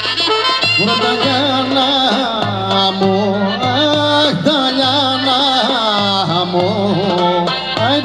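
Greek folk dance music: an ornamented melody line that wavers and slides in pitch, over a steady low beat.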